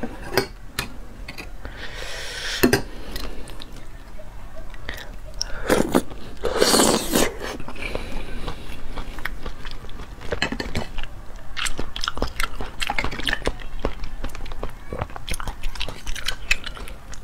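Close-miked eating of raw oysters: wet chewing and mouth sounds with scattered sharp clicks of oyster shells being handled. A louder, longer slurp comes about six to seven seconds in.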